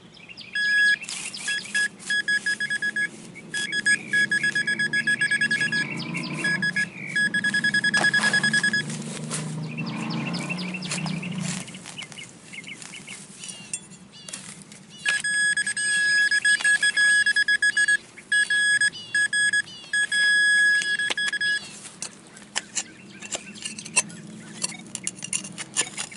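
Metal detecting pinpointer beeping with a high, rapidly pulsing electronic tone as it is worked over a buried metal target (part of an old doorknob), in two long spells, with scattered clicks and scrapes of digging in the soil between and after.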